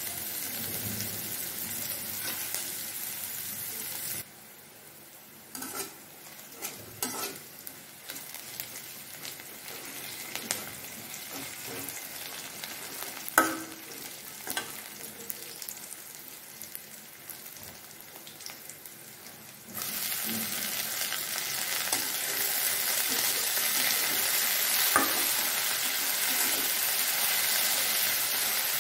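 Onion, garlic and green chillies sizzling in oil in a metal kadai, with a metal spatula scraping and clicking against the pan as they are stirred. About twenty seconds in, a much louder frying sizzle starts as chopped water spinach is stir-fried in the hot oil.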